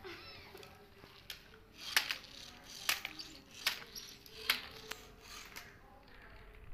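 Plastic toy cars being handled, giving a series of about six sharp clicks and taps spaced less than a second apart, which stop about two-thirds of the way in.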